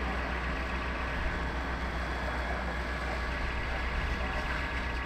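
Steady low drone of a fire engine's diesel engine running to drive its pump, which feeds the charged hoses.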